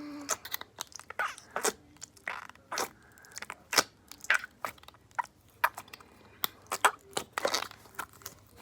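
Slime being squeezed and pressed by hand, giving a rapid, irregular run of short wet pops and squelches as air pockets burst: the farting noises slime makes when played with.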